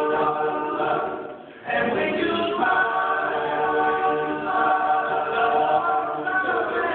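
School choir singing held chords in several parts. The sound falls away briefly about one and a half seconds in, between phrases, then the voices come back in together.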